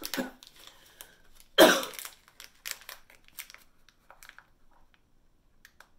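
A person coughing: one cough right at the start and a louder one about one and a half seconds in. Light crinkling of a small plastic pouch being worked open in the hands follows.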